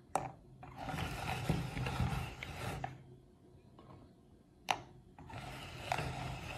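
Oreo cookies dropped one at a time into a metal meat grinder's hopper, each landing with a sharp clack, then crushed by the grinder's auger with a dry crunching grind lasting about two seconds. This happens twice.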